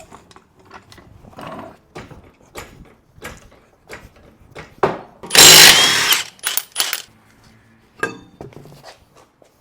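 Mechanic's tools working on the car's rear wheel as it comes off: scattered clicks and knocks, with one loud burst from a power tool about five and a half seconds in and a few shorter bursts just after it.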